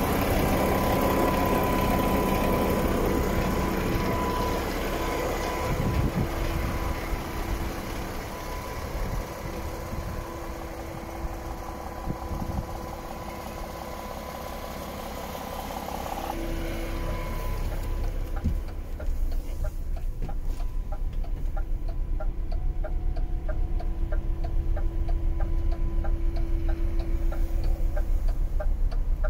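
DAF XF 510's diesel engine idling steadily. In the second half it is heard from the cab, with a regular light ticking about two to three times a second.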